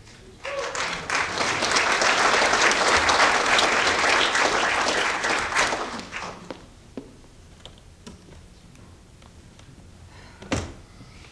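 A theatre audience applauding for about five seconds, then dying away. After that the hall is quiet, with a few small knocks and one sharp thump near the end.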